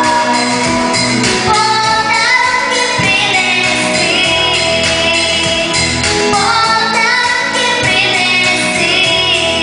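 A female vocalist singing a song with long held notes and sliding pitches, over instrumental backing.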